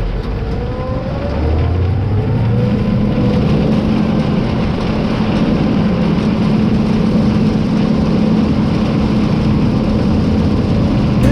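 A vehicle engine running steadily. It grows louder about a second and a half in, and a low steady hum sets in soon after.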